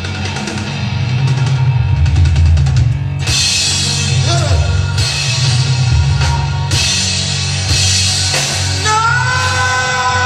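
Rock band with a drum kit and heavy bass playing a stage-musical number, recorded live from the audience with the drums re-recorded over it. About nine seconds in, a long note slides up slightly and is held.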